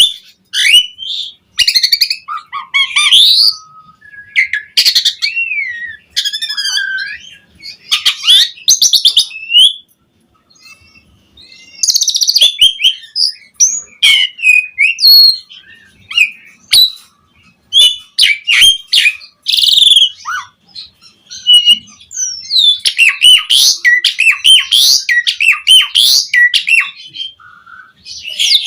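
A pied starling (jalak suren) singing full, varied song. Whistled glides, harsh buzzy notes and rapid chattering come in bouts with short pauses, and a long fast run follows after about two-thirds of the way through.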